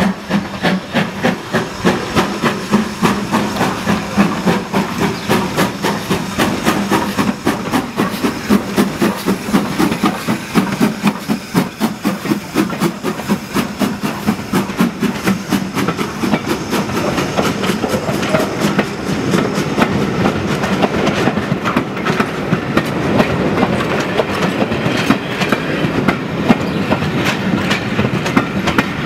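Steam tank locomotive and its train of carriages running past, with a steady repeating beat. In the second half the carriage wheels click over the rail joints as the coaches roll by.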